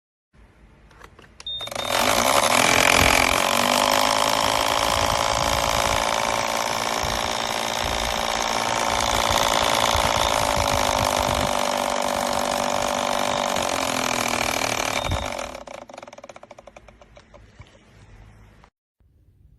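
A small electric motor running for about fourteen seconds. It comes up to speed about two seconds in and winds down near the end, with a steady whirring hum.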